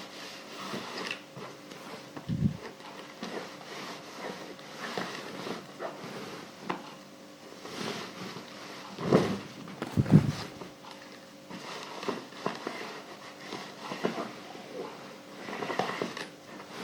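Clothes iron being worked over fabric on an ironing board: irregular rustling and sliding strokes of cloth, with three dull knocks, two of them close together past the middle.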